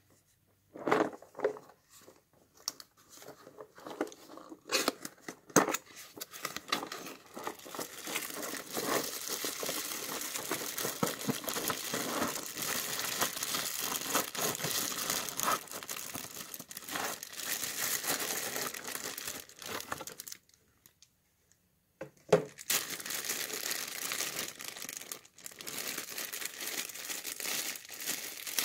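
A few scattered knocks and scrapes from a cardboard box being handled, then a clear plastic bag of plastic bio-filter balls crinkling steadily as it is pulled out of the box and opened. The crinkling stops for about a second and a half about two-thirds of the way through, then resumes.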